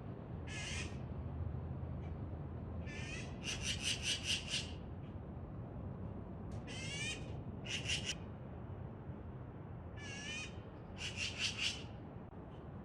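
Magpie giving harsh, rapid chattering calls in four short bouts, some notes sweeping downward.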